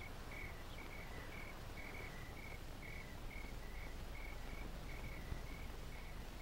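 Crickets chirping: short, high chirps repeated about two to three times a second, faint over a steady hiss.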